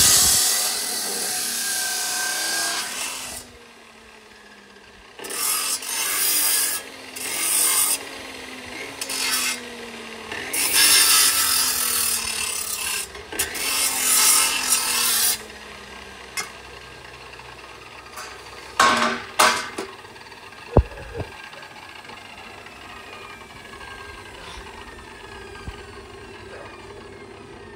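Maxpro abrasive cut-off saw grinding through galvanized steel square tubing in several bursts over the first half, its motor whine falling in pitch each time it is let off between cuts. After the saw stops, a couple of sharp knocks.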